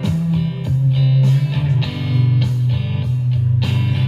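Guitar music playing loudly through a Tribit StormBox Pro Bluetooth speaker with its XBass mode switched on, a heavy, steady bass line under the strummed guitar.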